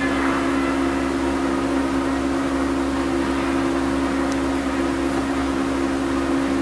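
Steady mechanical hum with a low droning tone, unchanging throughout, and a faint tick about four seconds in.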